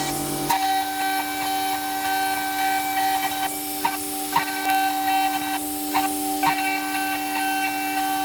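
CNC router milling an aluminium mold with a ball-nose bit: a steady machine whine with stepper-motor tones that shift about half a second in, and scattered light ticks from the cut.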